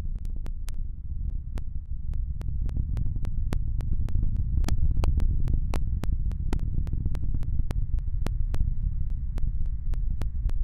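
Falcon 9 first stage's nine Merlin engines in powered ascent: a deep, steady rumble with sharp irregular crackles, several a second.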